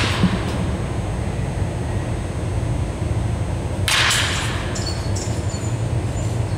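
Baseball bat swung hard, a short sharp swish about four seconds in, with the tail of another swing just at the start, over a steady low hum. Faint high squeaks follow the second swing.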